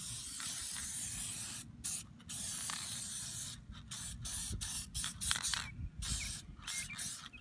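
Aerosol chain wax sprayed onto a dirt bike's drive chain. Long hisses for the first three and a half seconds, broken by two brief pauses, then a run of short spurts.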